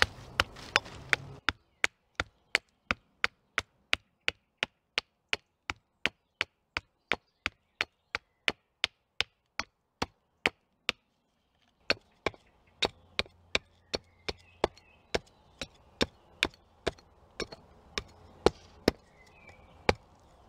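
Small hatchet chopping a point onto a thin stick held against a wooden chopping block: sharp, evenly spaced wooden chops, about three a second, with a short pause about halfway through.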